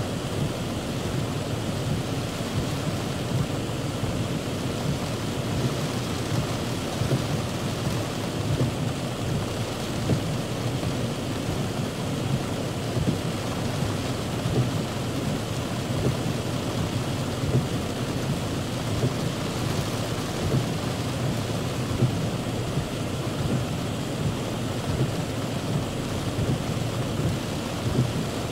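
Heavy rain drumming steadily on a car's roof and windshield, heard from inside the car, with many small irregular spatters.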